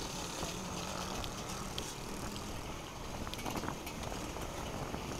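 A vehicle engine running steadily, a low even hum over outdoor background noise.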